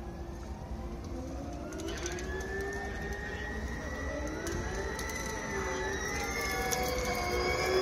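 Formula E race cars' electric drivetrains whining as several cars approach at low speed: overlapping whines that glide up and down in pitch and grow louder toward the end.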